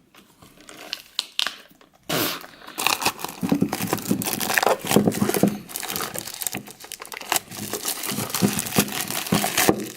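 Plastic wrapping on Pokémon card packaging crinkling and tearing as it is pulled open by hand, starting about two seconds in after a few light clicks and handling noises.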